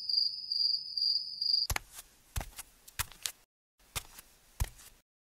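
A cricket chirring in a steady pulsing trill that cuts off suddenly about a second and a half in, followed by a run of about nine sharp taps with silence between them.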